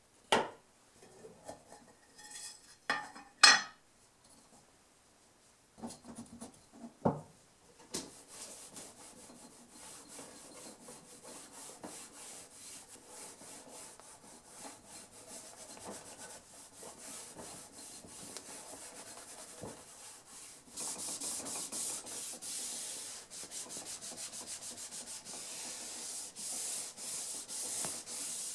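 A few sharp metal clicks at the start, the loudest about three seconds in, as the paste wax tin is handled and pried with a blade. Then, from about eight seconds, a cloth pad rubs paste wax back and forth along the steel blade of a mitre box saw, steady, growing louder about two-thirds of the way through.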